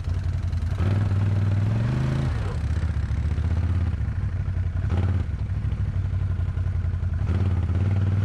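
ATV engine revving in repeated bursts, its pitch rising about a second in, again around five seconds, and near the end, as a quad stuck in mud is being pulled out.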